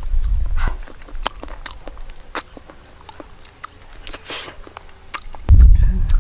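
Close-up eating sounds of a person biting and sucking soft, juicy melon flesh: wet mouth clicks and smacks scattered throughout, with a longer slurping bite about four seconds in. A loud low rumble fills the first moment and returns about five and a half seconds in.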